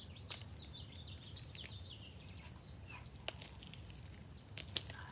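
Sticky homemade slime stretched and pulled apart by hand, giving off scattered small clicks and pops, two of them sharper near the end. A steady high insect buzz runs underneath.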